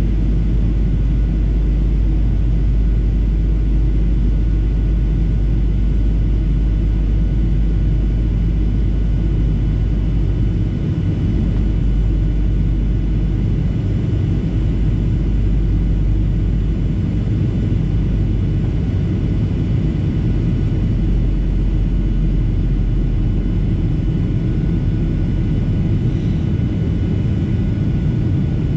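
Steady in-flight cabin noise of a Boeing 737-800 heard at a window seat beside the wing: the low rumble of its CFM56 jet engines and rushing airflow, with a few faint steady whines above it.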